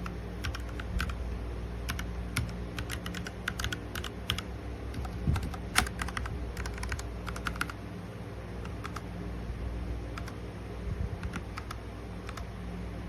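Typing on a Royal Kludge RK61 mechanical keyboard: irregular keystroke clicks in quick runs for the first eight seconds or so, then sparser, over a faint steady low hum.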